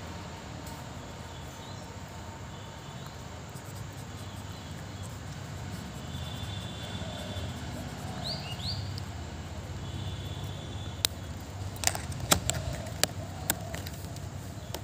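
Faint bird chirps, a few short rising calls, over a steady low background hum, then several sharp clicks and taps in the last few seconds.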